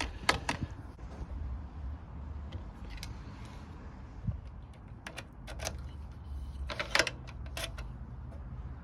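Scattered small metallic clicks and taps, in irregular clusters, as a size 4 Allen key tightens the screws of a bike lock's mounting bracket, over a low steady rumble.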